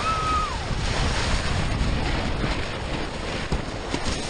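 Steady rush of water and air with wind noise on the microphone as a rider speeds down a racing water slide on a mat. A drawn-out high yell ends about half a second in.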